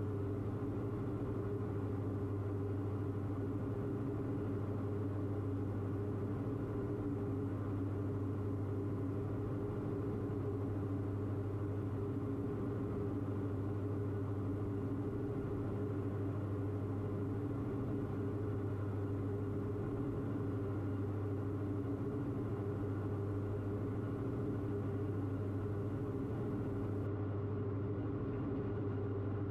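The twin engines and propellers of a Diamond DA42 running steadily in flight, heard inside the cockpit as an even, unbroken drone.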